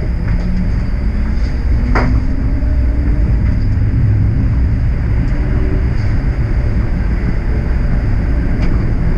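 TTC streetcar running along its track, heard from inside at the front: a steady low rumble of the car and its wheels on the rails, with a faint whine slowly rising in pitch and a single sharp clack about two seconds in.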